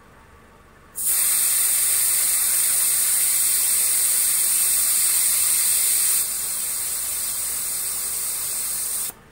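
Air hissing out of a car tyre's valve stem as the valve core is held down to let pressure out. The hiss starts suddenly about a second in, drops a little in level about two-thirds of the way through, and cuts off shortly before the end.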